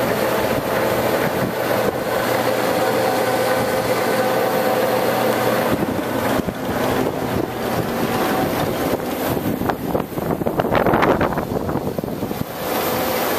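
Warner & Swasey No. 4A turret lathe running under power, its headstock gearing giving a steady whine over the motor's hum. From about nine seconds in the sound grows louder and rougher, then settles back to the steady run near the end.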